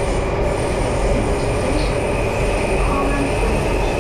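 Cabin noise inside a Singapore MRT Circle Line train running through an underground tunnel: a steady, loud rumble and rush of wheels on rail, with a thin high-pitched whine above it.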